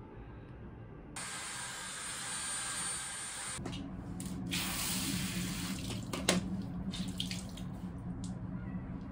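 Water running from a tap, starting suddenly about a second in. A few seconds later a low steady hum joins it, with short handling knocks on top.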